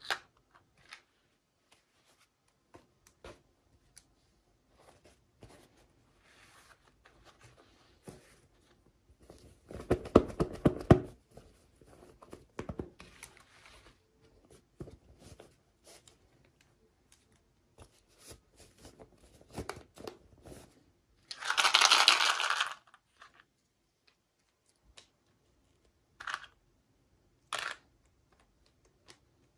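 Toy packaging being handled and opened: scattered taps and crinkles, a dense crackling spell about a third of the way in, and one loud ripping sound about two-thirds of the way through.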